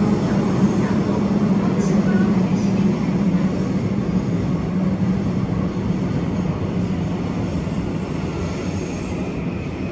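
Seoul Subway Line 3 train running between stations, heard from inside the passenger car: steady rumble of wheels on rail with a low steady hum, slowly getting quieter toward the end.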